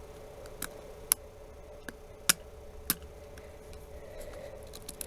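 A handful of small sharp clicks at irregular intervals from a Phillips screwdriver working the tiny screws out of an LG K373 phone's housing, over a faint steady hum.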